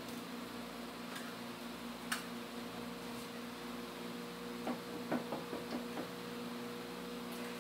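A utensil clicking against a mixing bowl as an egg is stirred into cake batter: one click about two seconds in, then a quick run of about six near the end. A steady low hum runs underneath.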